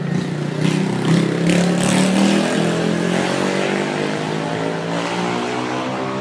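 A motorbike's engine running as it passes close by on a paved street, loudest about one to two seconds in, then fading slowly.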